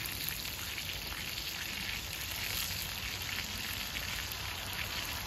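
Pork belly slices sizzling in a grill pan over a portable gas stove, a steady crackling hiss.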